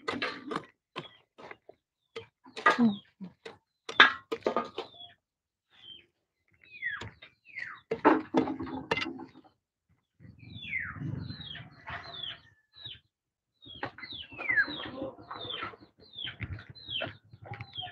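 Birds chirping, with many short falling chirps, over rustling and clicks from the phone being handled close to the body.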